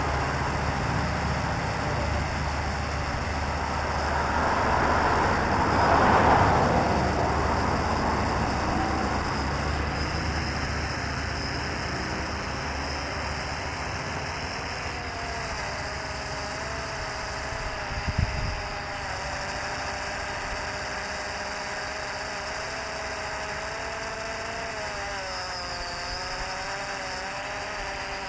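A steady outdoor rush that swells about six seconds in and then eases, with a thin wavering motor whine from an FPV hexacopter's electric motors rising and falling in pitch from about a third of the way through. A brief knock sounds about eighteen seconds in.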